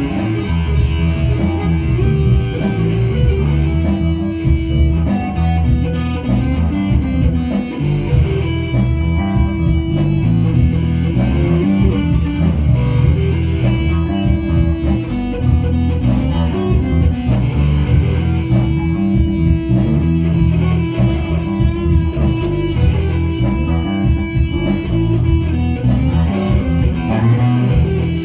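Electric guitar and bass guitar playing together, a riff that repeats every few seconds over a steady bass line.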